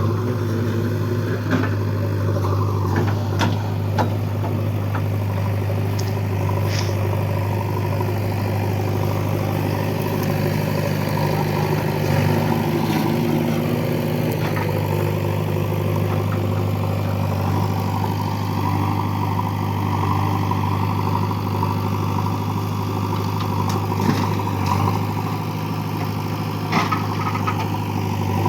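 Heavy diesel engine of earth-moving machinery running at a steady speed, with a few short knocks.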